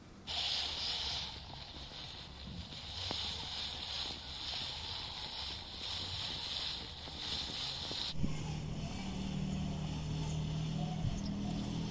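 LEGO Technic RC off-road car's electric motors and plastic gears whining as it drives through tall grass. About eight seconds in the sound cuts abruptly to a steadier, lower-pitched motor hum.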